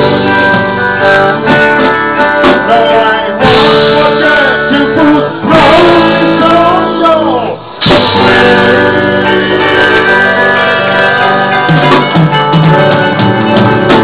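Live rock band playing an instrumental passage, with electric guitar to the fore over bass and drums.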